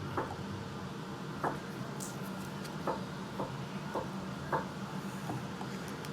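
Trading cards being handled: about seven light taps and clicks at irregular moments over a steady low hum.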